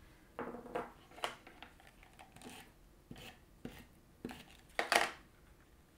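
Paper photos and card stock being handled and slid on a cutting mat: a series of short rustles and light taps, the loudest about five seconds in.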